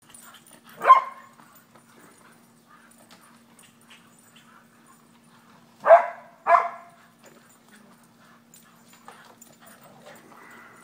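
English Springer Spaniels barking at a squirrel on the fence: one sharp bark about a second in, then two quick barks about half a second apart near the middle, with scuffling and quieter yips between.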